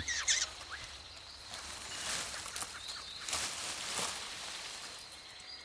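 Tropical forest ambience: a steady high insect drone with faint bird chirps and a few brief rustles.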